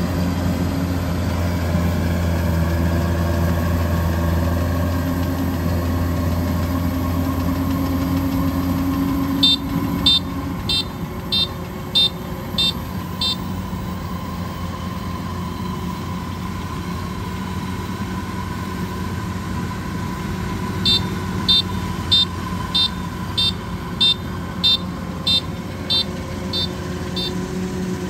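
Kubota DC-93 rice combine harvester's diesel engine running steadily while cutting. About a third of the way in, the engine sound lightens. Twice, a warning beeper sounds a run of short high beeps, about one and a half a second: seven or so the first time, about eleven near the end.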